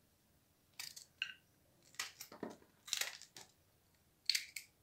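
Kitchen knife cutting long green peppers into pieces on a plate: a string of short crisp crunches and clicks of the blade through the pepper and onto the plate.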